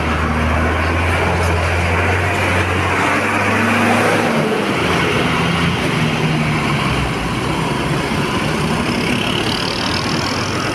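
Mercedes-Benz diesel coach pulling away close by: a deep engine drone that shifts in pitch as the bus gets under way, then falls off about halfway through as it moves off down the road.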